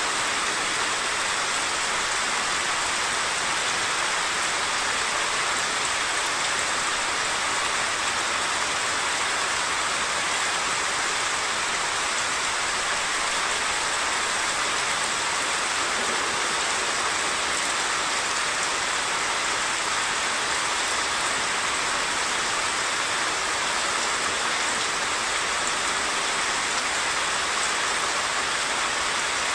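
Monsoon rain falling steadily, an even hiss, blended with the rush of a flood-swollen stream.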